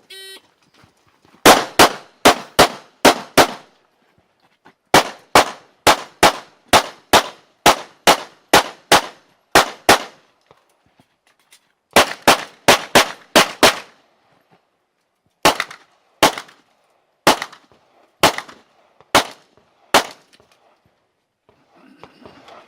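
A shot-timer beep, then a competition pistol (ZEV ISI Speedgun) firing strings of rapid shots about three a second. Three fast strings with short pauses between them are followed near the end by about six slower, more spaced-out shots.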